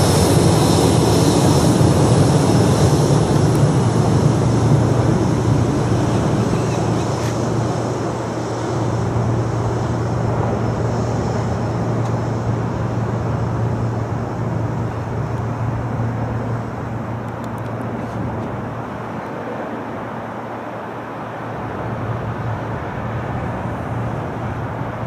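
Turbofan engines of a Boeing 737 MAX 8 (CFM LEAP-1B) rumbling with a steady low hum as the jet rolls out down the runway after landing. The noise is loudest at first and fades steadily as the aircraft slows and moves away, the hiss going first.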